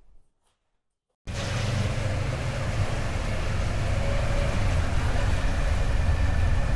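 Motorcycle riding at speed: a steady engine drone under loud wind noise on the microphone. It starts abruptly about a second in and cuts off suddenly at the end.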